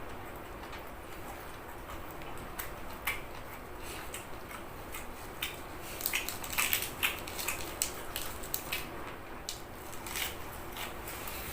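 Scattered light clicks and taps of kitchen utensils against dishes as food is handled and plated, coming thickest about six to seven seconds in.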